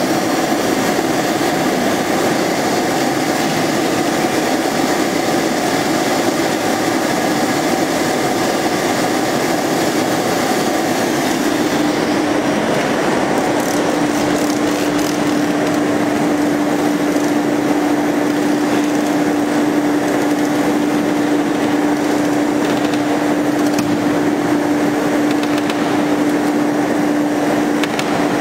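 Large auto tool change CNC router running: a steady, loud machine noise with a steady hum that grows stronger about a third of the way in.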